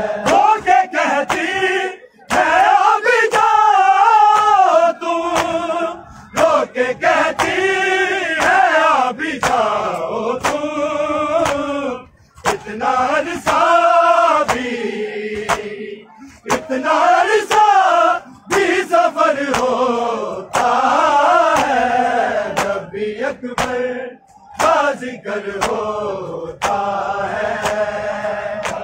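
A large group of men chanting a noha (Shia lament) in unison, in sung phrases that rise and fall with short breaks between them. Under the chanting runs a steady rhythm of sharp slaps, the chest-beating (matam) that keeps time with the lament.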